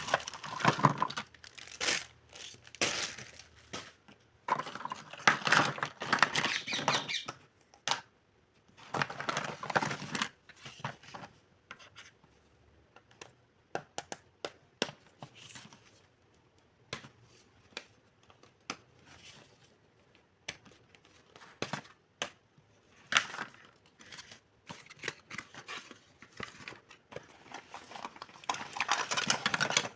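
Plastic packaging crinkling and tearing in irregular bursts, with sharp clicks and light knocks of plastic pieces being handled as a kitchen set is unboxed.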